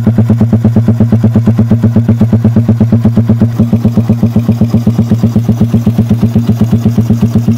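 Suzuki Raider 150's single-cylinder four-stroke engine idling through an aftermarket exhaust, a steady, even pulse of about seven beats a second.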